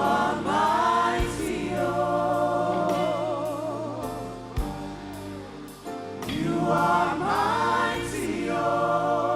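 Slow gospel worship song: voices singing long held notes with vibrato over steady instrumental backing, in two long phrases that each swell up at the start.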